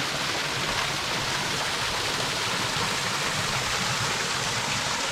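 Waterfall pouring down, a steady even rush of water that stays level throughout.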